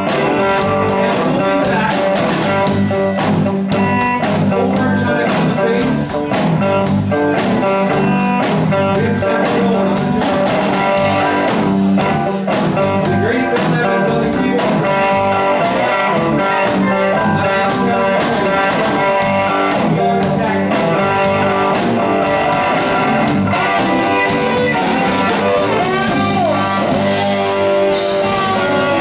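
Live band playing an instrumental passage with no singing: electric guitar over drums, bass guitar and electric keyboard.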